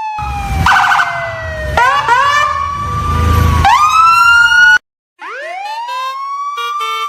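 Siren-like sound effects: a long falling wail, then several rising glides. They break off for a moment about five seconds in, then rise again, over a low rumble in the first half.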